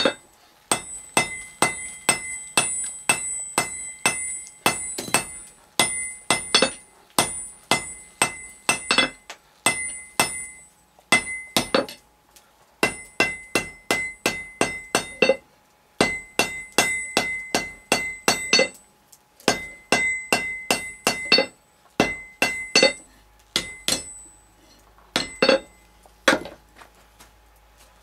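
Hand hammer striking red-hot iron on an anvil's horn in quick runs of blows, about three a second, with short pauses between runs; each blow rings with a clear high metallic tone from the anvil. The iron is being drawn out on the horn to shape a forged door hinge.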